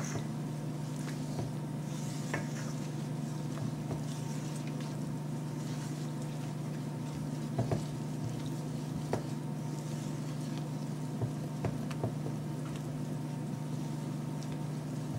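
Pancake batter being mixed by hand in a bowl: soft wet stirring with scattered light, irregular taps of the utensil against the bowl, over a steady low hum.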